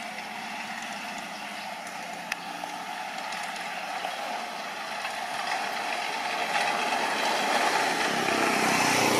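Engine and road noise of a vehicle approaching, steady at first and growing louder over the last few seconds.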